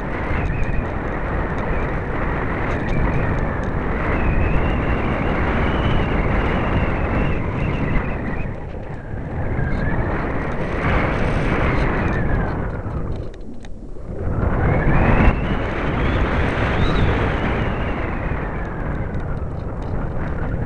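Wind noise on the airborne camera's microphone, with the Parkzone Radian's brushless electric motor and propeller whining through it. The whine rises and falls slowly in pitch, fades out briefly about two-thirds of the way in, then comes back up to its highest pitch.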